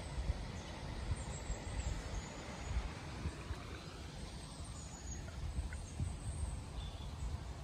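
Outdoor ambience: a low, uneven rumble throughout, with a few faint, short high chirps.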